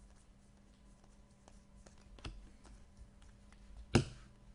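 Trading cards being handled: faint scattered clicks and flicks of card stock, with one sharp, louder snap about four seconds in.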